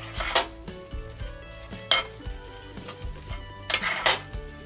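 A hand mixing very soft, wet focaccia dough with olive oil in a glass bowl: wet squelching with several sharp slaps and clicks against the bowl.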